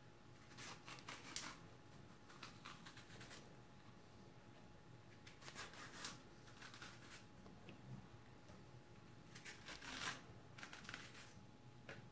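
Vegetable peeler scraping thin ribbons off a courgette: faint, quick scraping strokes in six short runs a second or two apart.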